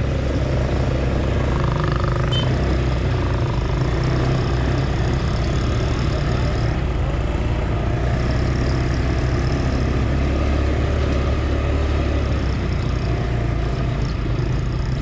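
Small ATV engine running steadily as the quad rides along, a continuous low drone.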